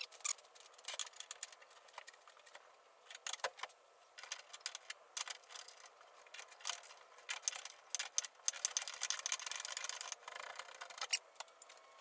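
Scattered light clicks, taps and small metallic rattles of tools and materials being handled during measuring, with a longer, denser stretch of rattling clicks about two-thirds of the way through.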